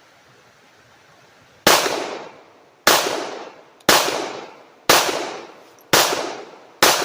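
A gun fired six times in steady succession, about one shot a second, starting a couple of seconds in. Each sharp report trails off over most of a second.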